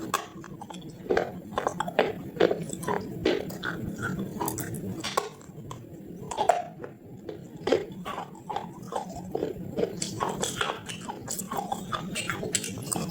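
Close-miked biting and chewing of a clay pot: many sharp, irregular crunches one after another.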